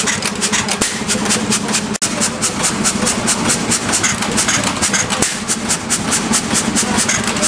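Amanco 8 HP Mule Team hopper-cooled hit-and-miss petrol stationary engine running, with a rapid, even mechanical clatter of about six or seven clicks a second over a steady low hum.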